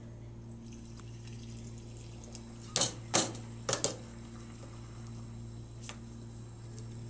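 Lab equipment being handled on a bench: about three seconds in come four short knocks and rubbing sounds as the acid bottle and plastic funnel are set down and a balloon is worked over the flask neck. A steady low hum runs underneath.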